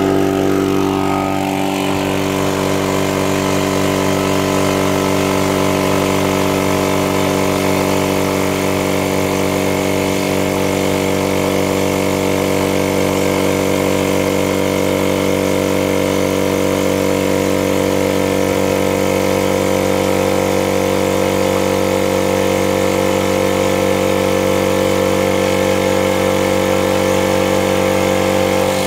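Secondhand direct-drive piston air compressor with a 2.5 hp electric motor running steadily under load, pumping its 40-litre tank up from empty.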